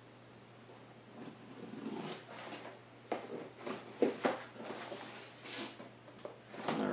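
A cardboard shipping box being cut open and unpacked by hand: a utility knife scraping through the packing tape, then the cardboard flaps rustling and a few sharp knocks as they are pulled open and the parts inside are handled.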